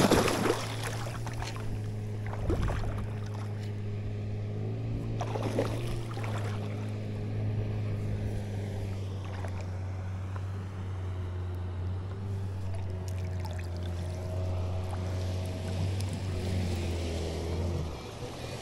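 A hooked peacock bass splashing hard at the surface of shallow water at the start, with smaller splashes about two and a half and five and a half seconds in. Under it an outboard motor hums steadily, then stops abruptly near the end.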